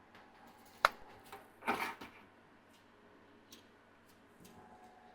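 Small handling sounds on a workbench: a sharp click about a second in, then a brief rustle, with a few faint ticks later over a faint steady hum.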